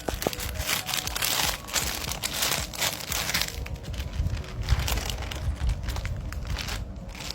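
Plastic wrapping crinkling and rustling as it is handled, in irregular bursts with a low rumble of handling underneath.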